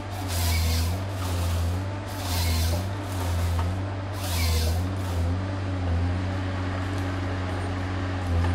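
Neuson Ecotec 242 HVT tracked forestry harvester's diesel engine running steadily, its pitch wavering up and down as the crane and harvester head work. Three loud hissing rushes come in the first five seconds.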